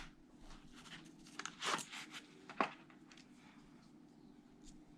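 Light clicks and handling noises from a Leatherman OHT multitool being worked in the hands, with a few sharper metal clicks near the middle.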